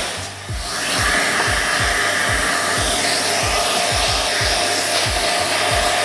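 Dyson Ball 2 Animal upright vacuum cleaner running with suction through its wand and small brush tool: a steady rushing of air that dips briefly near the start. Background music with a steady low beat plays underneath.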